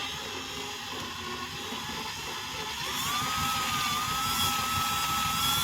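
Hart 20-volt cordless drill with a flathead bit backing out a receptacle's mounting screw, run slowly; about halfway through its motor whine rises in pitch and then holds steady.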